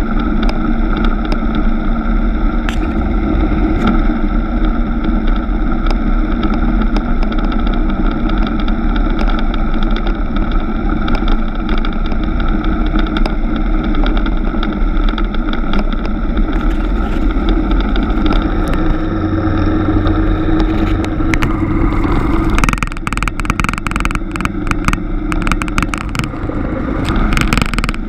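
Suzuki GW250 Inazuma's 248 cc parallel-twin engine running steadily at cruising speed on a dirt road, with tyre and wind noise. About 22 seconds in the engine note drops back and a rapid crackle of clicks takes over.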